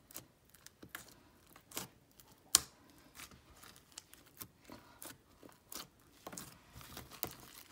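Hands squeezing and kneading a soft, detergent-activated green slime, making irregular wet clicks and pops, with one louder pop about two and a half seconds in.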